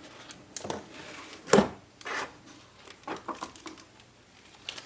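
Plastic wrapping crinkling and rustling in short irregular bursts as a diecast model plane is lifted out of its box by the wrap, with one sharper knock about a second and a half in.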